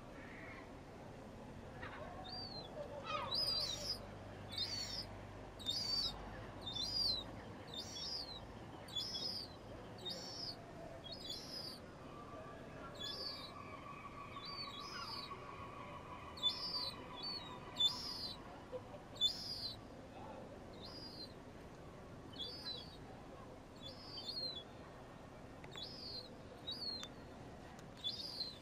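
Juvenile herring gulls begging: a thin, high-pitched call repeated about once a second, each note rising and then falling.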